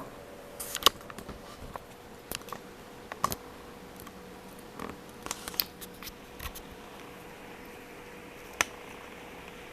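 Scattered light clicks and taps from small hard objects being handled, most in the first seven seconds and one more near the end, over a faint steady hum.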